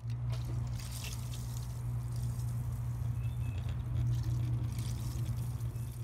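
Water well pump system running: a steady low hum with water rushing through the piping. The pump motor is drawing almost 20 amps, which the owner takes as a sign that the pump is bad.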